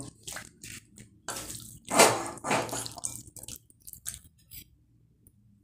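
A spoon stirring raw chicken pieces through egg and cornflour in a ceramic bowl: irregular wet squelching strokes, loudest about two seconds in, stopping about four and a half seconds in.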